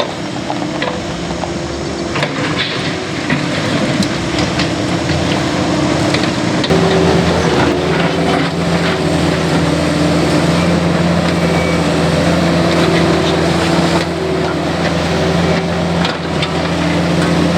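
Cat 308E mini excavator's diesel engine running under load while digging, with scattered knocks and clanks; about seven seconds in the engine note shifts and grows louder as it takes more load.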